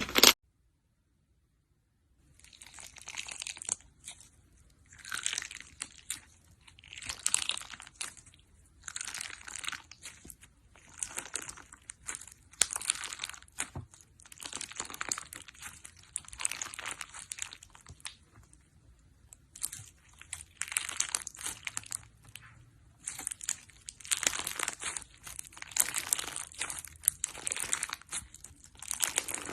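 Slime being squeezed and pressed by hand, giving crunchy, crinkling crackles in repeated short bursts about every one to two seconds, starting about two seconds in.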